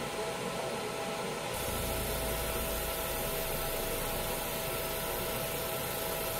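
Fiber laser marking machine running with a steady hum and a thin whine; about a second and a half in the sound shifts, with more low rumble and more hiss, as the laser starts marking the steel bowl.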